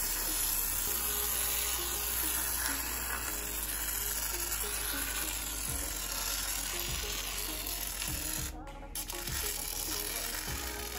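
Soft background music over a steady hiss.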